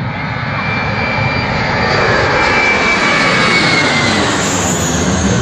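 Jet airliner taking off at full thrust and passing low overhead. The engine noise is loud and steady and grows louder as the aircraft comes over.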